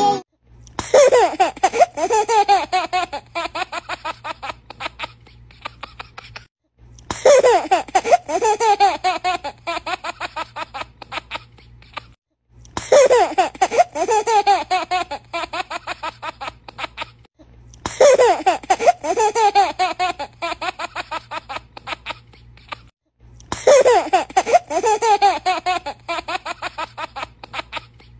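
A baby laughing, the same clip of giggles looped about every five and a half seconds: each pass opens with a loud burst of laughter that trails off into quieter giggles, over a faint low hum.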